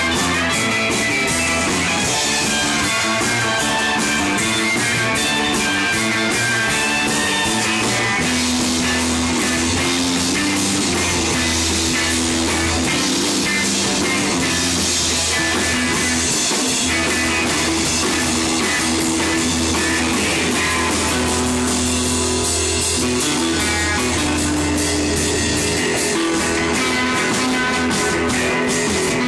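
Live rock band playing: amplified electric guitars over a drum kit, with steady, unbroken loud playing.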